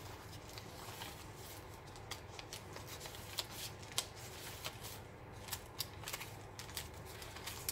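Paper pages and card tags of a thick handmade journal being turned and handled by hand: soft rustling with many small irregular ticks and taps.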